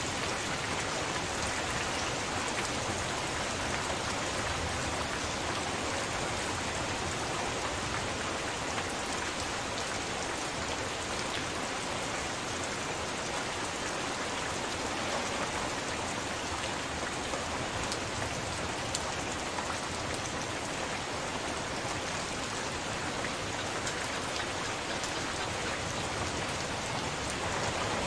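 Heavy rain falling steadily: a dense, even hiss of many drops, with now and then a sharper single drop ticking through.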